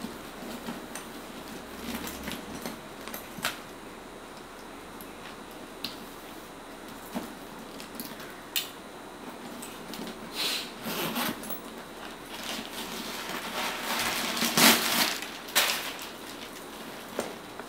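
A leather satchel being handled: scattered light clicks and taps of its metal hardware, a zip being pulled open near the middle, then a louder stretch of plastic bag rustling as the packing is pulled out.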